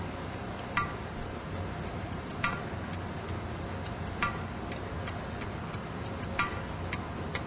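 Hammer striking a small hot steel bar over the edge of an anvil to curl its tip into a scroll: four ringing blows about two seconds apart, with lighter ticking taps in between, over a steady background hum.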